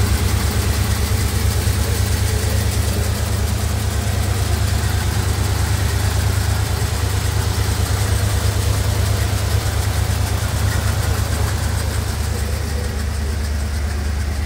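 1955 Cadillac Series 62's 331 cubic-inch overhead-valve V8 idling steadily, heard up close in the open engine bay.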